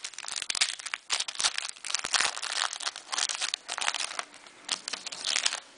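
Foil wrapper of a football trading-card pack being torn open and crinkled in the hands: a dense run of crackles and rustles with short pauses.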